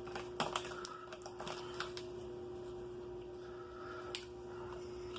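A few scattered light clicks and taps from a spoon and food packaging being handled while the food is tasted, over a steady low hum.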